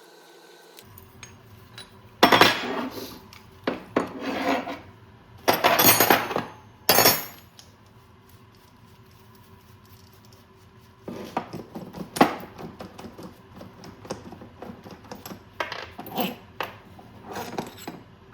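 Metal parts and tools clinking and clattering on a workbench, in irregular bursts of knocks and rattles during a dirt bike shock linkage rebuild.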